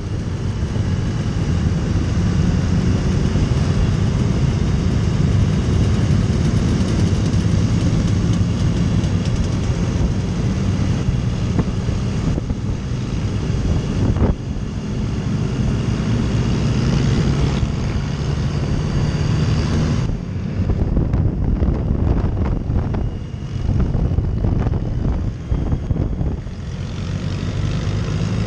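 Touring motorcycle's engine running at cruising speed with wind rushing over the handlebar-mounted microphone, and a short knock about halfway through. Later on the wind noise drops away and the engine sound becomes uneven, as the bike eases off.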